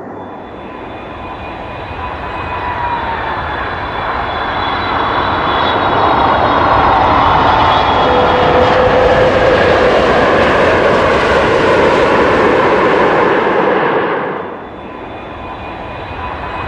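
Airplane landing: engine whine with a rushing noise that builds to a loud roar for several seconds, then drops off sharply about fourteen seconds in.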